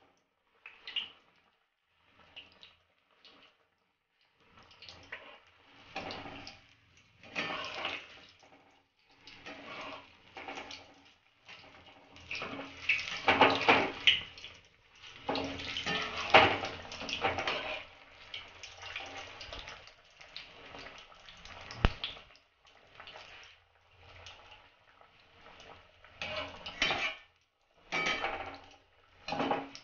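Battered tomato chop frying in hot oil in a kadai, sizzling in irregular bursts, loudest about halfway through. A slotted metal spoon scrapes and clinks against the pan as the chop is turned, with one sharp click a little past the middle.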